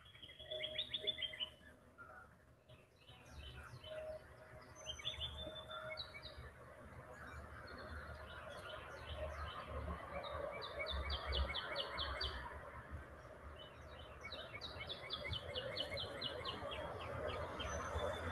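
Small birds chirping and calling, including two quick runs of repeated high notes at about five a second, one around the middle and one near the end, over a steady low rumble.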